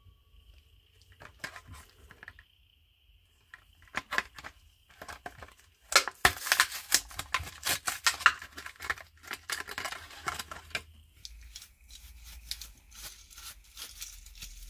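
Hot Wheels blister-card packaging being torn open and crinkled by hand. A few sharp clicks come first, then a burst of tearing and crackling about six seconds in, easing to lighter rustling.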